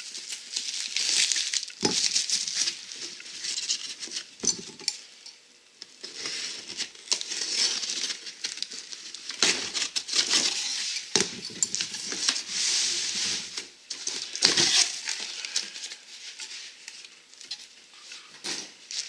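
Packaging crinkling and rustling as new disc brake parts are unwrapped from their boxes by hand, in irregular spells, with a few sharp knocks.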